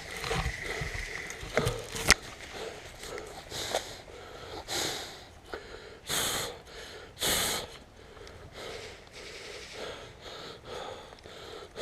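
A person breathing hard close to the microphone, with three loud, hissing breaths in the middle, amid rustling and a sharp click a couple of seconds in.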